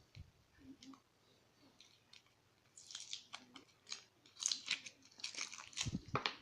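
Metal lock parts and tools being handled: scattered light clicks, then a run of rapid scratchy clicking and scraping for the last few seconds.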